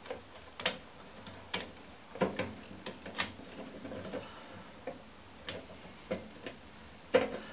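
Plastic wiring connectors clicking and rattling as they are pushed onto the terminal strips of a replacement boiler circuit board: sharp, irregular clicks about once a second.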